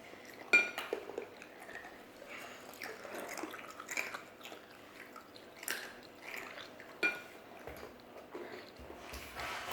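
Close-up eating sounds of Buldak spicy instant noodles: irregular wet chewing and mouth noises. Two short ringing clinks come about half a second in and again about seven seconds in.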